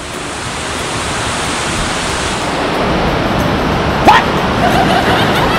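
Steady rush of running water, growing gradually louder, with a short rising squeak about four seconds in.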